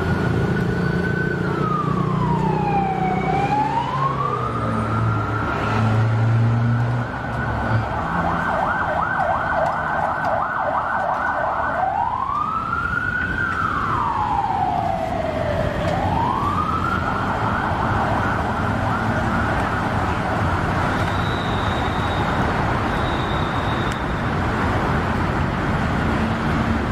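Electronic siren of an emergency vehicle, switching between a slow wail that rises and falls and a fast yelp. It wails at first, yelps from about eight to twelve seconds in, wails again, then yelps from about sixteen seconds on, over a low rumble of road traffic.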